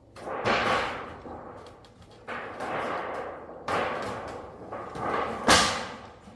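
Building work: several scraping, rattling bursts of about a second each, and a sharp knock about five and a half seconds in.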